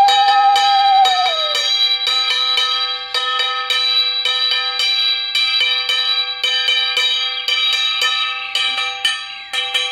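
A brass puja hand bell rung fast and continuously, its strokes uneven and its ringing overlapping. Over the first second and a half a wavering blown tone, like a conch shell, holds and then droops away.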